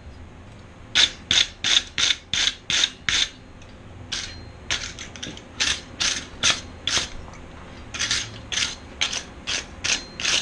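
Hand wire brush with a wooden block handle scrubbing a forged steel fork on an anvil in quick back-and-forth strokes, about three a second, with a short pause partway through.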